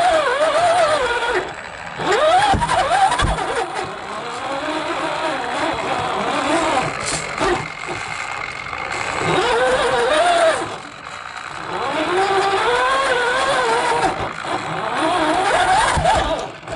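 Radio-controlled car's motor, heard from a camera on the car, its pitch rising and falling again and again as the throttle is worked. A few knocks from the car running over the paving.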